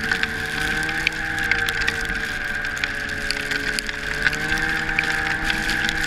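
Arctic Cat ZR500 snowmobile's two-stroke engine running at a steady cruise, its pitch dipping slightly and rising again near the middle, with many irregular sharp clicks over it.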